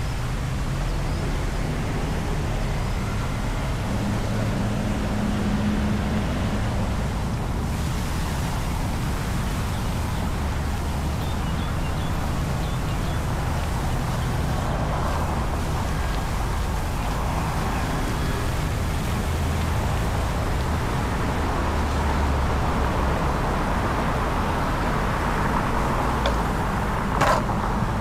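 Steady road traffic with wind buffeting the microphone. Near the end there is a single sharp clack, the longboard set down on the concrete sidewalk.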